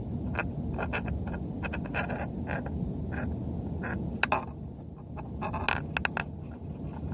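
Small waves slapping and splashing against a plastic kayak hull in many short, irregular ticks, over a steady low rumble of wind on the microphone.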